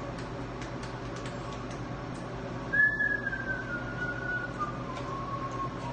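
A person whistling a few slow, held notes that step down in pitch, starting about three seconds in, over a steady low fan hum.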